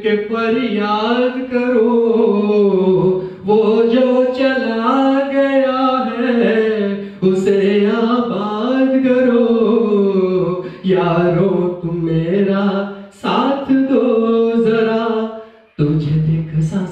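A man singing solo into a handheld microphone, unaccompanied, in several long melodic phrases with short breaks between them.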